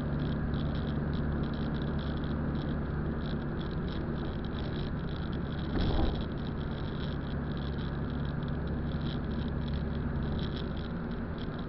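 Inside a moving car's cabin: steady engine hum and tyre noise on a wet road, with a brief louder swell about six seconds in.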